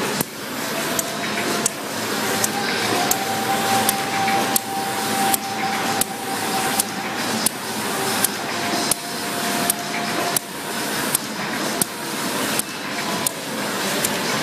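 Automatic square-bottom paper bag making machine running: a steady mechanical whir with a sharp clack about every 0.7 seconds as it cycles, and a faint thin whine through most of it.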